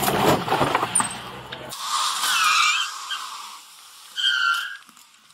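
A car engine running hard amid a clatter of knocks and scrapes as the stolen sedan is driven over a rock-filled planter, cut off suddenly about two seconds in. Then high squealing glides and, about four seconds in, a short steady squeal, like tires skidding on pavement.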